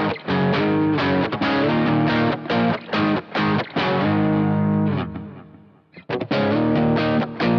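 Washburn Sonamaster S1 electric guitar with single-coil pickups, played through a distorted amp tone. It plays short, chopped rhythmic chords, lets one chord ring and fade out about five seconds in, then starts again.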